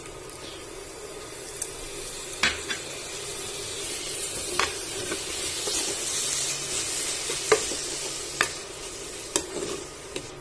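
Onion, ginger, garlic and green chillies with spice powders sizzling steadily in hot oil as they are stirred, with a few sharp knocks of the utensil against the pan.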